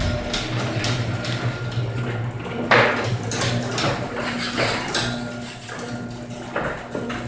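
Uninsulated garage door closing on its opener, a steady motor hum under repeated metallic pops, clanks and knocks as the door jerks and bounces on the way down, with one louder bang about three seconds in. The owner suspects the door arm angle is off.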